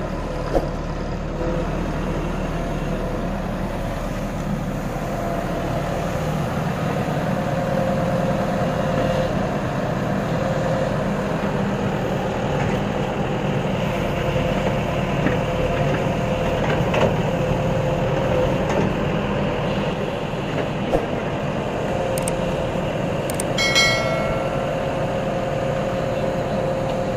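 Diesel engine of a JCB JS140 tracked excavator running steadily under load, with a steady whine, as the machine crawls up onto a flatbed trailer. There are occasional sharp clanks, and a brief high squeal near the end.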